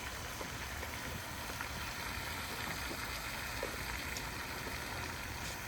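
Steady rushing noise of a gas cooking burner running under a pot of simmering soup, with a few faint clicks.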